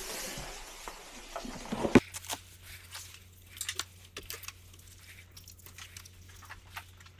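Scattered clicks, taps and crackles of hands working on plastic parts, with one loud sharp knock about two seconds in and a low steady hum after it.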